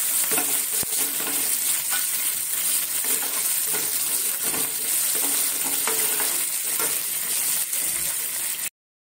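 Mustard seeds, cumin, crushed garlic and curry leaves sizzling steadily in hot oil in a nonstick frying pan, with scattered sharp clicks and the scrape of a ladle stirring them: the tempering (tadka) stage of a curry. The sound cuts off abruptly just before the end.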